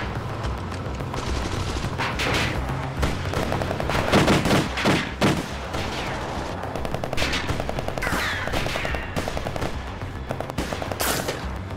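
Automatic gunfire in a shootout: many shots fired in quick bursts, over a low steady rumble.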